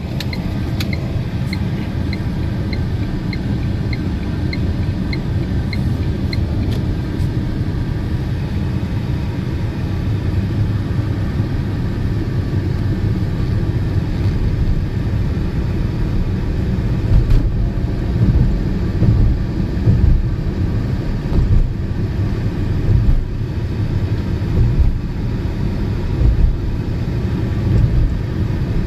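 Electric car driving at road speed: a steady low rumble of tyre and wind noise, with no engine sound. A run of short high beeps, about two a second, sounds for the first several seconds, and the low rumble swells unevenly in the second half.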